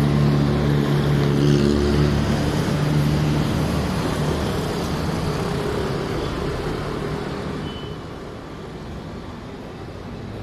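Street traffic: a motor vehicle's engine running close by, loud at first and fading gradually over several seconds, leaving steady road noise.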